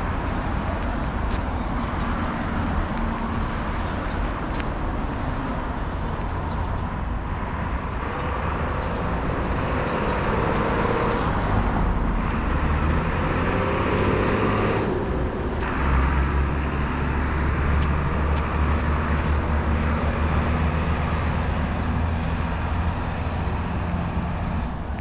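Road traffic passing close by: car engines and tyre noise. About halfway through a vehicle's engine climbs in pitch, then a heavier, deep engine rumble holds for most of the rest.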